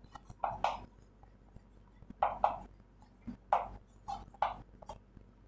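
Chalk writing on a chalkboard: short, separate scratchy strokes, coming in small clusters of two or three with brief pauses between.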